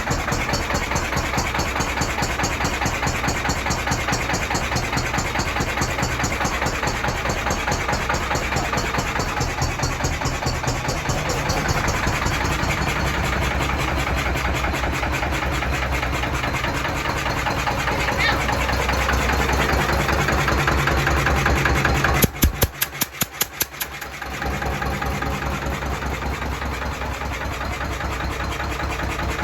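A Lister CS stationary diesel engine running steadily with an even, rhythmic beat. The owner suspects worn piston rings, with compression blowing past them into the crankcase. About 22 seconds in, a quick run of sharp clicks is followed by a dip of about two seconds before the steady running resumes.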